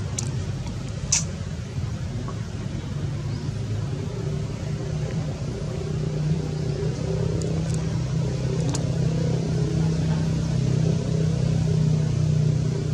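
Low, steady hum of an engine running, growing louder through the second half, with a sharp click about a second in and another near nine seconds.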